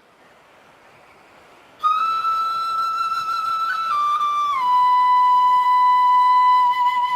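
Background music of a solo wind instrument playing long held notes that step down in pitch, starting suddenly about two seconds in after a faint hiss.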